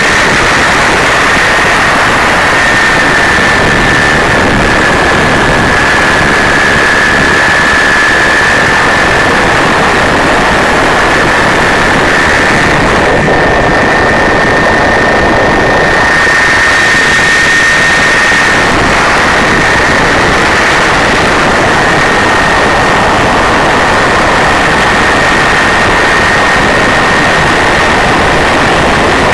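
Supercharged 572 cubic-inch Sainty quad-cam V8 in a ski boat running steadily underway, heard loud from on board, with a steady high tone running through it.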